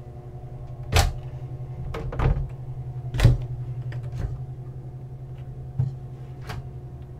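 Cabin closet doors being opened and closed by hand: a handful of sharp knocks and latch clicks, spaced irregularly, over a steady low hum.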